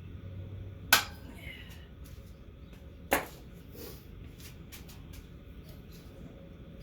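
Two sharp knocks about two seconds apart, each ringing briefly, with a few lighter clicks between them: parts and tools being handled while an engine is test-fitted into a minibike frame.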